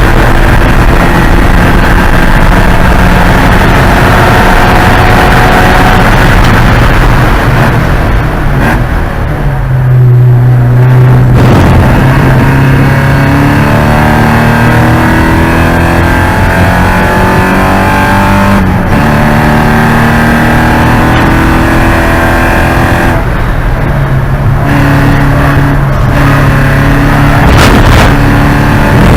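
Porsche 944 Spec race car's four-cylinder engine at hard throttle, its pitch climbing through each gear. It lifts and drops for a gear change or braking about a third of the way in, again past the middle, and twice near the end.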